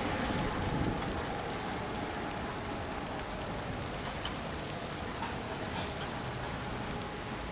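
Steady hiss of rain, with a faint steady tone underneath.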